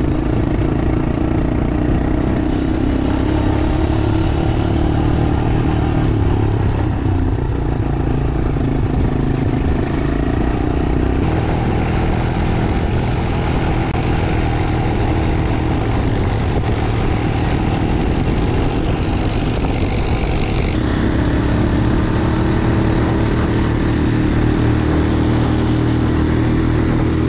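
Quad bike engine running steadily while riding along a dirt road. The sound changes abruptly about 11 and 21 seconds in.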